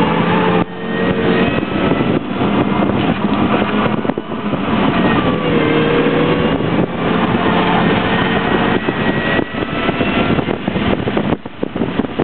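Mini Cooper's four-cylinder engine heard from inside the cabin, pulling hard at speed with its note climbing under acceleration, over loud wind and tyre noise. Near the end the engine note fades into choppy, buffeting road and wind noise.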